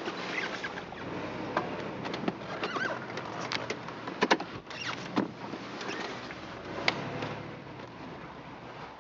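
A car driving slowly, heard from inside the cabin as a steady low hum. A few sharp clicks and knocks come in the middle of the stretch.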